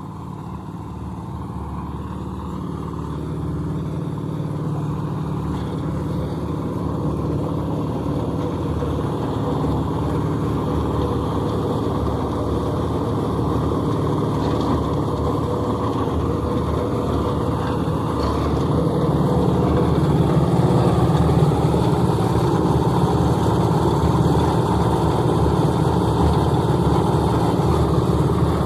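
Concrete mixer's small engine running steadily, growing gradually louder with a further step up about two-thirds of the way through.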